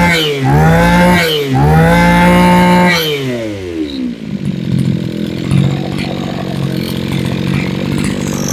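Mitsubishi TL23 23cc two-stroke brush cutter engine being revved in quick throttle blips, held high briefly, then dropping back to a steady idle about three to four seconds in. It is running cleanly and responsively.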